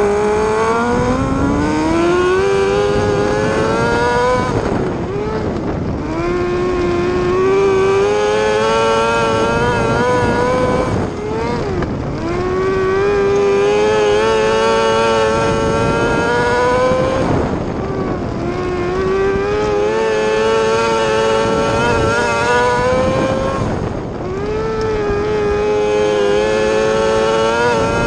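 Micro sprint car's Yamaha R6 inline-four motorcycle engine at racing speed, heard onboard: the engine note climbs as the car accelerates down each straight, then drops as the throttle comes off for the turn, about every six seconds, five times over.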